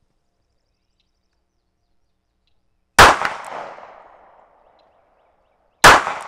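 Two pistol shots from a second-generation Ruger LCP .380 ACP pocket pistol firing Remington Golden Saber ammunition, about three seconds apart. Each shot trails off over a second or so.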